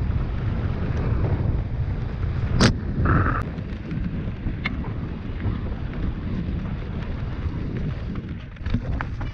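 Wind rushing over an action camera's microphone on a mountain bike riding a dirt trail, with the low rumble and rattle of the ride underneath. There is a sharp clack about two and a half seconds in, a brief squeak just after, and a few knocks near the end.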